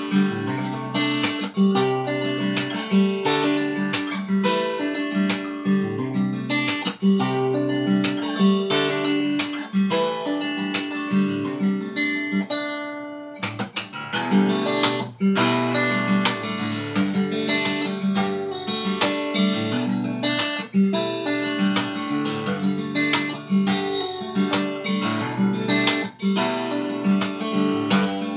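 Solo guitar playing an instrumental tune: a steady run of plucked notes over repeating bass notes. Just after halfway through the sound briefly drops away, then the playing picks up again.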